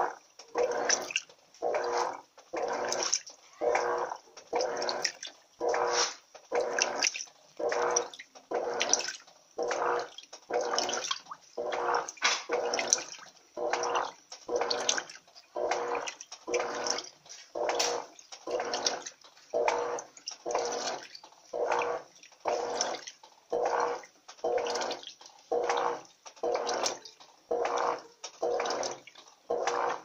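Electrolux Turbo Economia LTE 12 top-load washer in its agitation stage: the agitator churns a load of wet microfibre blankets back and forth, about one stroke a second. Each stroke is a swish of water with the motor's hum, and there is a short lull between strokes.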